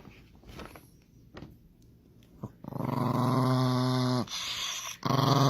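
A dog growling low: two long, steady growls, the first starting a little over halfway in and the second following after a short break.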